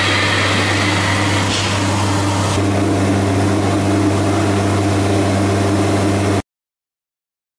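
CNC door-lock and hinge routing machine running with a steady motor hum. About two and a half seconds in the high hiss drops away, leaving a steadier hum of several even tones, and the sound cuts off suddenly near the end.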